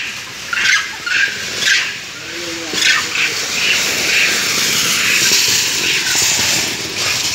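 Several short, shrill squeals from monkeys crowded into a wire trap cage, then a steady rushing noise over the last few seconds.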